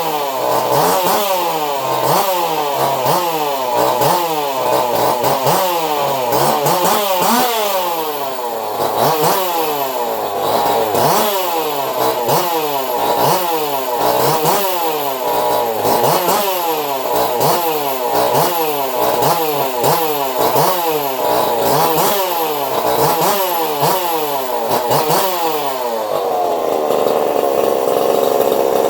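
Custom-built two-stroke chainsaw engine, with a swapped crankshaft and piston, being revved up and down over and over, about once a second. Near the end it settles at a steady speed.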